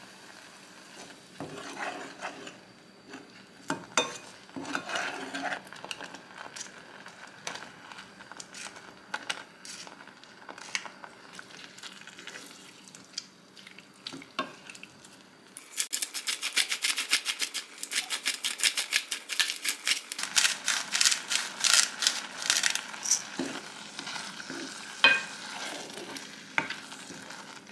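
Wooden spoon stirring a thick soy milk soup with wood ear mushrooms in a saucepan, with scattered scrapes and light clicks. About halfway through, the soup gives a dense run of rapid wet crackling for several seconds as it simmers under the stirring.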